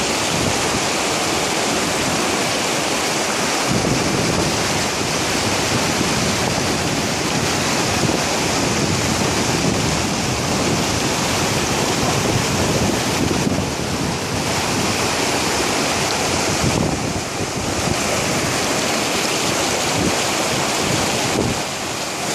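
Mountain stream rushing over boulders, a steady loud rush of water, with wind buffeting the microphone from about four seconds in.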